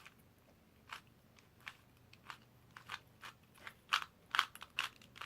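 Irregular sharp plastic clicks and clacks of a 2x2 speed cube being turned by hand, more frequent near the end.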